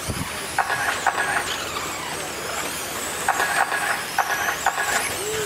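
Radio-controlled late model cars racing round a dirt oval, their motors giving a high whine that rises and falls as they accelerate and brake through the turns, over a steady rush of tyres on clay. Short bursts of repeated chirping tones come about half a second in and again from about three seconds in.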